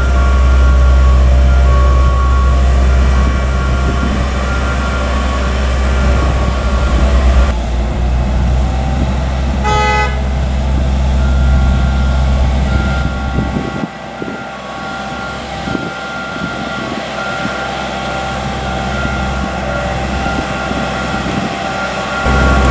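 Rail-car mover shunting a Shinkansen car: a low steady engine drone with a repeating high warning beep, and one short horn toot about halfway through. The engine drone drops away a little later while the beeping goes on.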